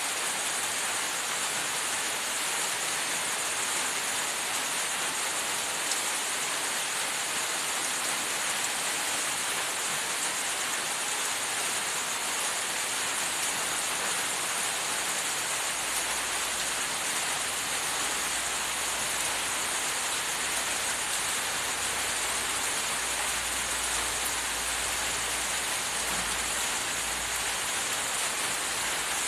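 Steady, even hiss of background noise with no distinct events; a low rumble comes and goes in the second half.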